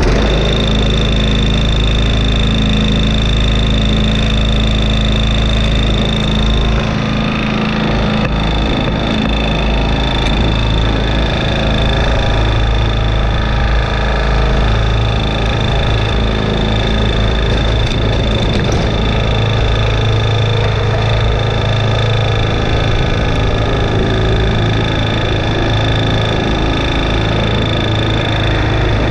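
Toro TimeMaster 30-inch walk-behind mower's engine running steadily, a low, even engine note with a thin high whine over it.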